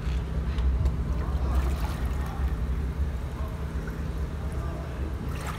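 River water splashing and sloshing around a steel bridge pile as arms work in it at the waterline, over a steady low rumble.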